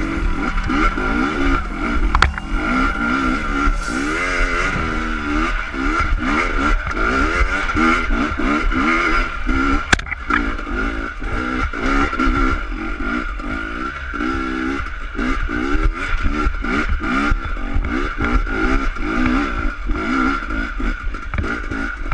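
GasGas 250 dirt bike engine chugging under load up a steep dirt climb, its revs rising and falling over and over as the throttle is worked, with occasional knocks from the bike over rough ground.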